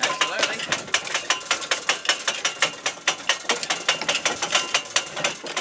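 Anchor chain being hove in by hand on a tall ship's windlass: rapid, regular clicking that keeps up a steady beat.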